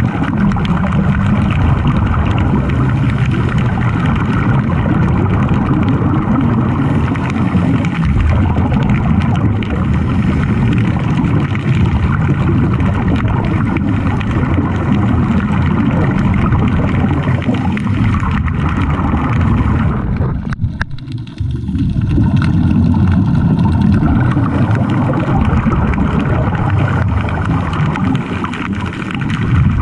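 Steady underwater rumble with a hiss over it, heard through a camera submerged on a dive; it dips briefly about two-thirds of the way through.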